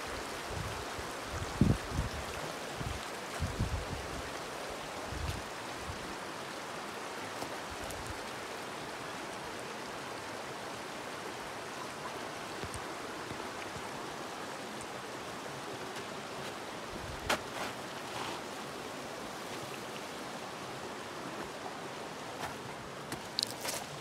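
Creek water running steadily. A few low thumps come in the first several seconds, and a few sharp clicks and scrapes come later and near the end.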